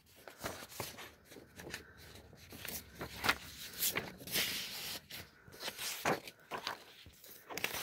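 Sheets of paper being shuffled and handled: irregular rustles and light knocks.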